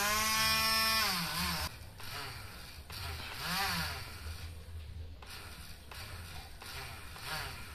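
Miniature model diesel engine on a homemade RC off-road car running with a low steady chug and revved up and back down several times. A high rev drops away about a second and a half in, and another rises and falls near the middle.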